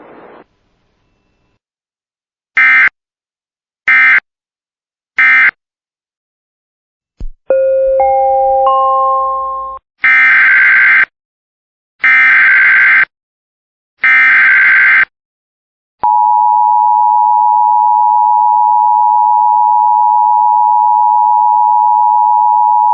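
Emergency Alert System tones: three short end-of-message data bursts, then a three-note rising chime. Three screechy SAME header data bursts follow, about a second each, and then the steady two-tone EAS attention signal (853 and 960 Hz) holds for about eight seconds.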